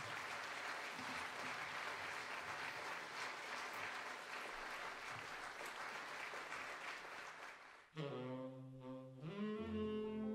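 Audience applauding for about eight seconds. Then, after an abrupt cut, a tenor saxophone begins playing a melody in long held notes, with a double bass coming in underneath.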